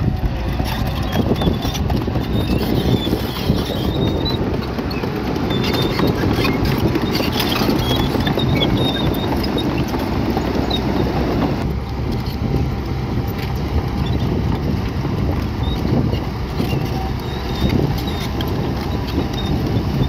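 Bulldozer at work: its engine runs steadily under a continuous clatter of clanks and scrapes from its tracks and the rock. The clatter thins out a little past halfway.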